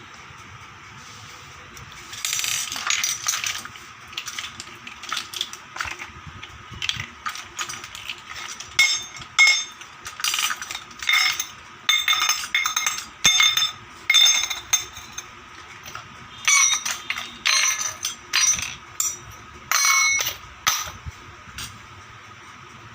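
Small hard plastic toy kitchen pieces being handled, set down and clicked together in irregular clatters, some with a short ringing clink.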